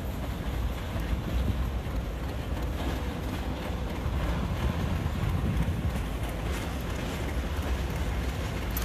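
A slow train passing: a steady low rumble with no break, with some wind noise on the microphone.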